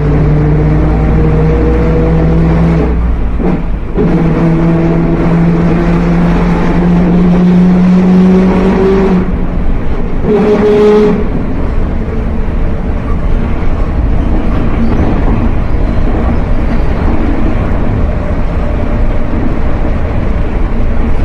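Mercedes-Benz OF 1721 BlueTec 5 bus under way, with a droning whine from the rear differential that climbs in pitch between about 4 and 9 seconds in, the sign of a worn differential and axle trouble.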